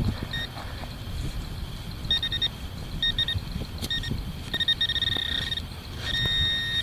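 Metal detector giving short, high beeps in quick clusters as it sweeps over a buried target, ending in a longer held tone near the end; the readings jump about, and the hunter suspects the target could be iron.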